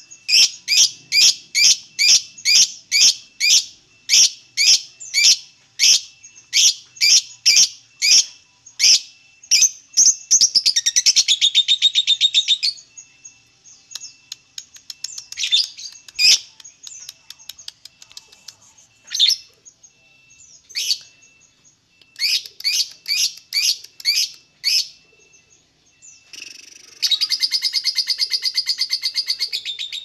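Fischer's lovebird calling: a run of sharp chirps at about two a second breaks into a brief fast chatter, then scattered chirps follow. Near the end a long, rapid, unbroken chattering trill sets in, the lovebird's 'ngekek' song.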